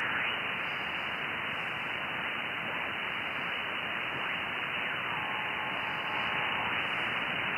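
Icom IC-7610 HF receiver hiss in upper sideband as the operator tunes across the 20-metre band, the noise held below about 3 kHz by the 2.9 kHz filter. Faint signals slide in pitch as the dial moves, and a few faint steady whistles (carriers) pass through about two-thirds in.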